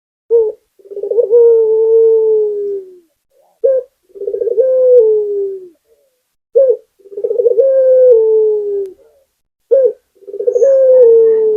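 Puter dove (ringed turtle-dove) cooing: four phrases about three seconds apart, each a short note followed by a long rolling coo that drops in pitch at its end.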